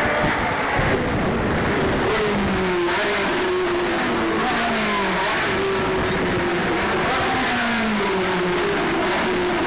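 Several Ferrari race car engines running hard out of sight along the circuit, overlapping one another. Each pitch climbs as a car accelerates and steps back down at a gear change, over a steady noise of the cars on the track.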